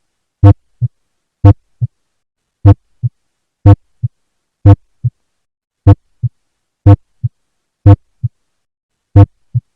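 Auscultated heart sounds at the mitral area, about nine beats a little under one a second. Each beat is a loud, sharp first heart sound (S1) followed about a third of a second later by a much softer second sound (S2). This is a loud S1, a finding associated with an increased transvalvular gradient, stronger ventricular contraction, a shortened PR interval or mitral valve prolapse.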